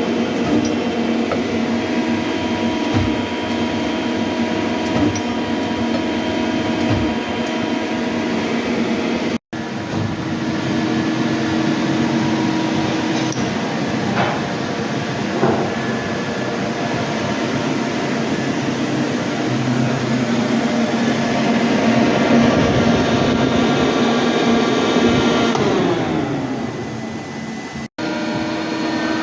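Hyundai HIT 8 S CNC lathe running: a steady machine hum and whine from its motors, with a few light knocks. Near the end the pitch slides down, as the spindle winds down.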